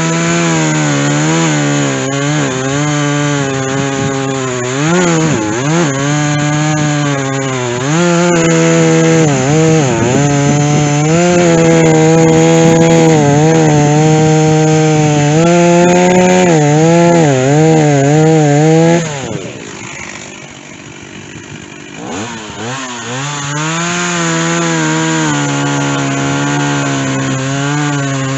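Stihl chainsaw with a dull chain cutting through white oak, the engine note wavering as it bogs under load. About two-thirds of the way through it drops to a low idle for a few seconds, then revs back up.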